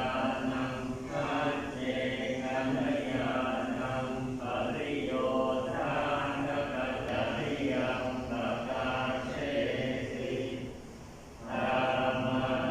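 A group of Thai Buddhist monks chanting the morning service together in a steady unison recitation. The chant breaks off briefly about eleven seconds in, then resumes.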